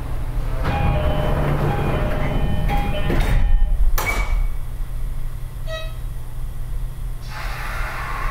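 Toei Type 5500 subway train standing at a station: chime tones sound, then its sliding doors close with two sharp thuds about three and four seconds in, and a short beep follows. Near the end the running noise rises as the train starts to pull away.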